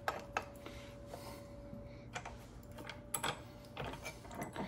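Scattered light clicks and metal clinks of an old metal sink basket strainer being handled in a small bench vise, with the loudest knocks about three seconds in and near the end. A faint steady hum sounds under the first two seconds.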